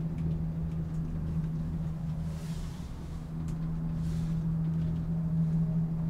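Cable car cabin travelling along its cable: a steady low hum over a rumble, with two faint hissing swells a couple of seconds apart.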